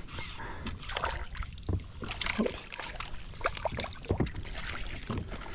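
Water splashing with scattered small knocks and rattles as a small kahawai is brought alongside and scooped out in a landing net.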